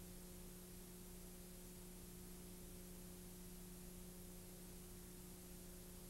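Near silence: a steady low electrical hum over faint hiss, unchanging.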